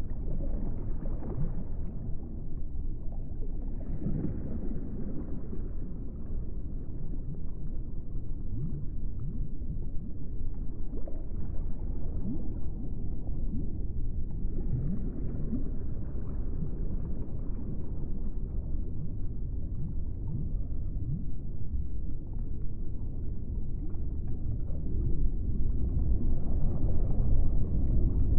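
A low, rumbling ambient sound bed, like an underwater drone, that swells and fades every few seconds and carries faint short rising tones, growing louder near the end.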